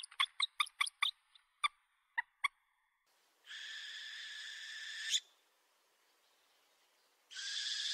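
Owl calls: a quick run of short, sharp calls, about five a second, that fades out about two and a half seconds in. Then comes a long harsh screech of about a second and a half, and another begins near the end.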